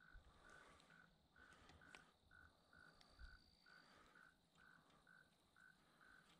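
Near silence, with a small creature's faint call repeating evenly about twice a second, frog-like or insect-like, and a couple of light clicks.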